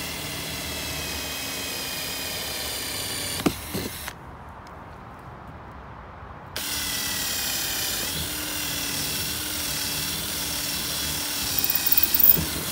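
Cordless drill boring drainage holes through the thick plastic wall of an old water butt. The motor runs with a steady whine, stops about three and a half seconds in, starts again about two seconds later, and there is a short rattle near the end.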